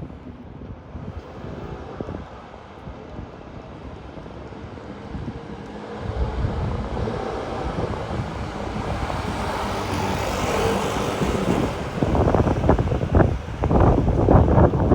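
Storm-force wind gusting and buffeting the microphone, a low rumble that builds about six seconds in and turns into hard, irregular blasts near the end.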